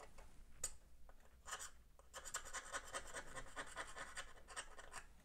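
Needle file rasping by hand in the axle hole of a die-cast metal toy truck chassis, enlarging the hole so a new axle will push on. Faint, with a few separate strokes first, then from about two seconds in a quick, even run of short strokes.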